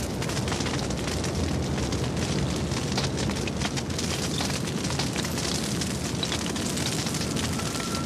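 Mountain grassland wildfire burning: a steady low rush of flames with many sharp crackles and pops throughout.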